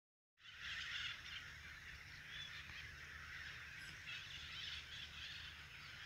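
Birds calling and chattering together in a dense, uneven chorus, over a low steady rumble.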